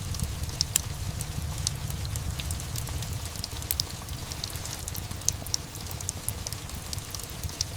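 Steady rain mixed with a crackling fireplace: many small, sharp pops and ticks over an even low rumble.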